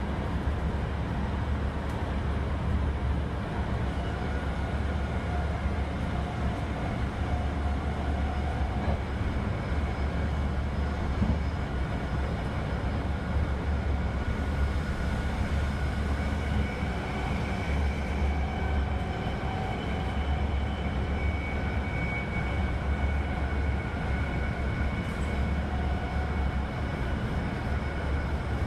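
Subway train noise heard from inside the car: a steady low rumble of the train running, with faint high whining tones over it.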